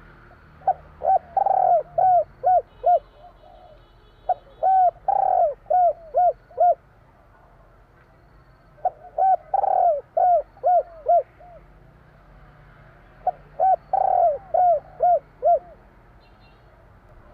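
Spotted dove (tekukur) cooing: four phrases, each a quick run of short coos with one longer, louder coo among them.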